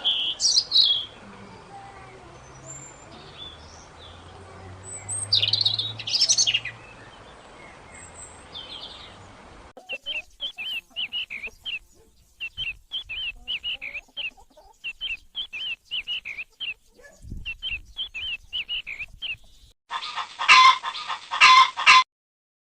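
Birds calling in a sequence of separate recordings. First, varied songbird calls over a low background hum; from about ten seconds in, a small bird's rapid, repeated high chirps; in the last couple of seconds, a few loud, harsh calls.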